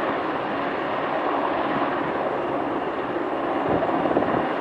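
PZL W-3 Sokół twin-turbine helicopter hovering, its rotor and engines making a steady, dense rushing noise.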